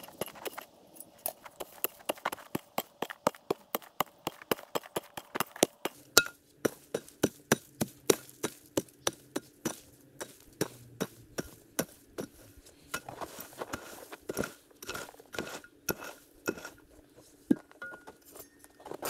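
A long series of sharp knocks from tool strikes, quick at first and then slowing to about two a second.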